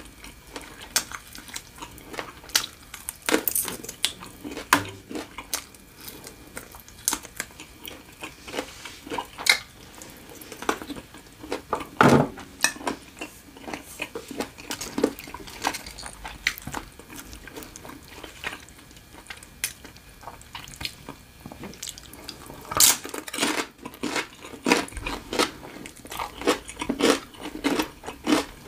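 Close-miked mouth sounds of someone eating fried chicken wing: wet chewing, lip smacks and clicks in an irregular stream, with louder bursts about twelve seconds in and again around twenty-three seconds.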